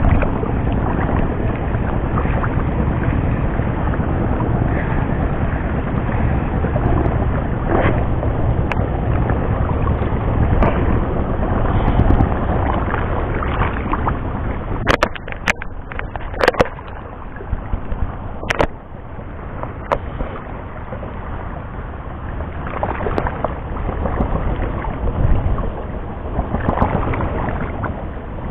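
Wind buffeting the microphone in a steady low rumble. About halfway through it eases off and a few sharp clicks and knocks come from fishing tackle being handled: the rod, reel and a soft-plastic lure.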